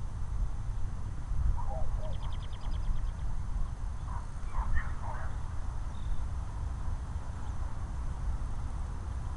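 Outdoor ambience: a steady low rumble with a few short bird calls, and a quick run of high clicks about two seconds in.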